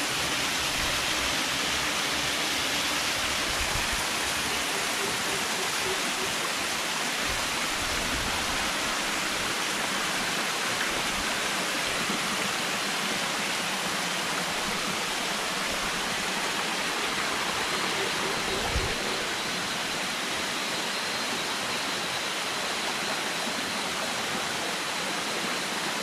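Small jungle waterfall cascading over rock slabs, a steady rushing of water. A single soft thump comes about two-thirds of the way through.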